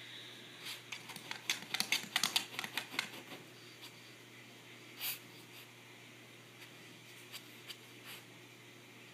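Small dog scratching and nosing at the edge of a low stand on carpet while trying to reach treats hidden underneath: a quick run of clicks and scrapes for about two seconds, then one louder scrape about five seconds in, and a few faint ticks after.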